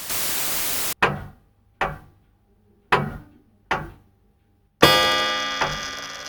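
A short burst of static hiss, then echoing footsteps about one a second, with a loud ringing metallic clang about five seconds in.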